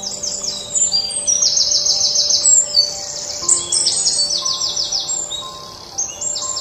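Birds chirping in rapid, high-pitched trills, one quick series after another, with faint music underneath.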